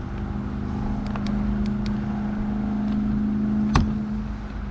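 A steady motor hum, slowly getting louder, with a few sharp clicks over it and one louder click near the end.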